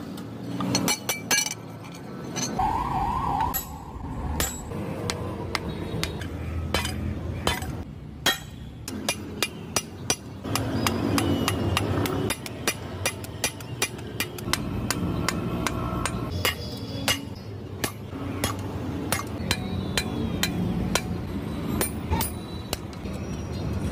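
Blacksmith hand-forging a billhook: repeated hammer strikes on red-hot steel over an anvil, sharp metallic clinks at an irregular pace, sometimes several a second, over a steady background rumble.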